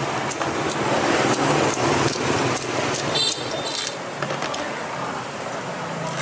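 Busy street ambience with motor traffic running underneath, and sharp clicks of kitchen scissors snipping through a cooked crab's shell. A brief high squeak comes about three seconds in.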